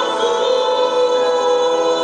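A woman singing a long held note into a microphone over a sustained organ chord.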